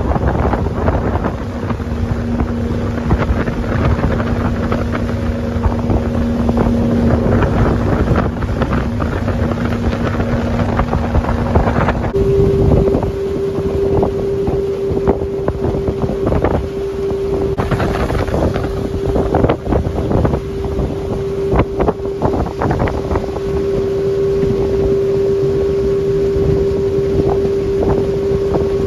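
Pontoon boat's motor running steadily underway, with wind buffeting the microphone and water rushing past the hull. The steady engine tone shifts higher about twelve seconds in, after which a few light knocks come through.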